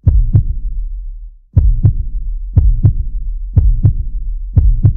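Stock soundtrack of heartbeat-like double thumps, a pair about every second, over a steady low drone.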